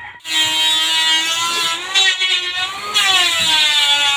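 A small motor running at high speed, starting suddenly and holding a steady whine whose pitch dips and then swings back up near the middle.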